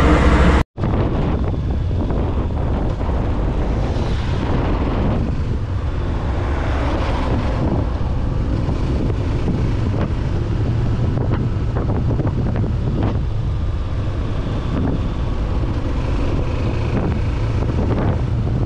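Wind buffeting the microphone of a camera mounted on a moving Suzuki motorcycle, a steady rumbling rush with the bike's engine running underneath it. The sound cuts out briefly less than a second in.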